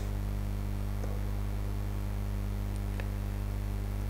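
Steady low electrical mains hum, with two faint clicks, one about a second in and one about three seconds in.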